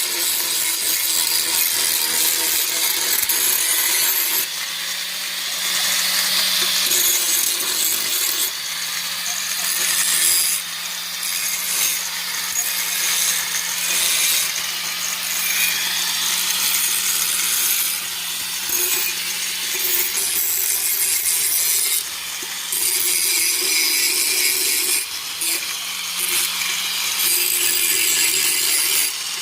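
Electric power tool working metal: its motor runs with a steady hum under a harsh, hissing grind that swells and eases as the tool bites and lets up.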